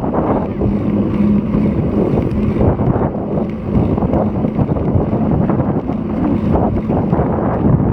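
Strong wind buffeting an action camera's microphone while riding a road bike, a loud, fluttering rumble, with a faint steady low hum beneath it.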